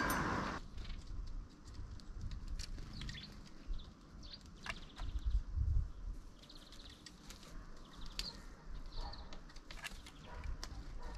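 Eurasian jay pecking and tapping on a wooden bird feeder: scattered sharp knocks, with faint short bird chirps every few seconds.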